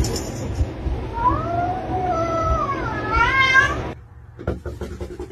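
A domestic cat meowing: one long drawn-out meow, then a shorter wavering one that rises and falls, cut off about four seconds in. It is followed by several quick soft knocks or taps.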